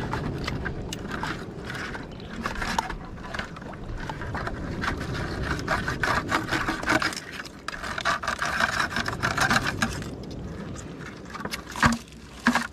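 Close-up rustling and scraping of a cast net's mesh being handled to free a blue crab over a plastic bucket, full of small clicks, with a couple of sharper knocks near the end.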